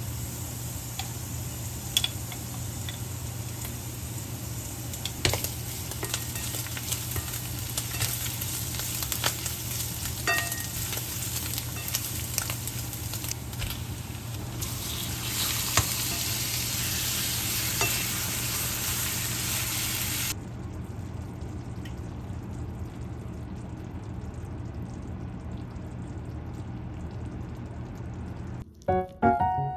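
Onions, garlic and thin-sliced beef sizzling in a nonstick frying pan, with scattered clicks and scrapes from stirring. About two-thirds of the way through, the sizzle turns softer. Piano music starts at the very end.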